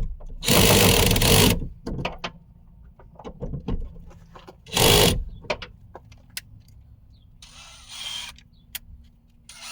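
Ratchet wrench with a 10mm socket turning a bolt in short bursts, with scattered clicks and knocks of tools and parts being handled between them.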